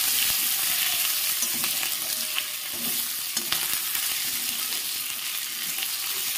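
Cumin, panch phoron and green chillies sizzling in hot oil in a kadai while a metal spatula stirs and scrapes the pan. A few sharp pops come through as the green chillies burst in the oil.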